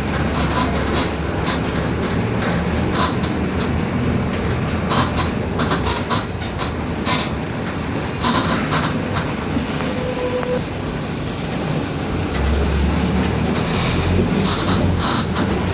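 Inside a Mercedes-Benz OF-1721 BlueTec 5 city bus on the move: the diesel engine and drivetrain run under a steady low rumble, with the rear differential droning, the 'roncando' the uploader points out. The body and interior fittings rattle and clatter in bursts over the road.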